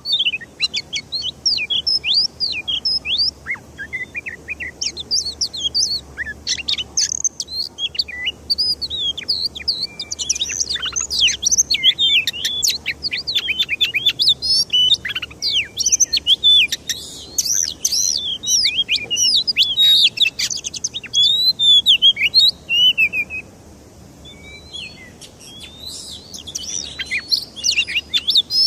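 Songbirds chirping and whistling in rapid, dense runs of short sweeping notes, easing off briefly about three-quarters of the way through and then resuming.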